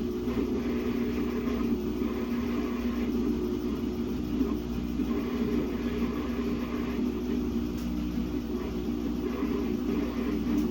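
Samsung WA50R5200AW top-load washing machine running steadily with a motor hum and low rumble, working a single pair of pants, a badly imbalanced load.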